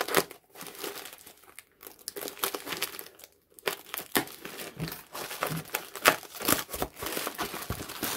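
Foam and plastic packing wrap crinkling and tearing as it is pulled and cut open by hand, in irregular crackles that get busier after about two seconds.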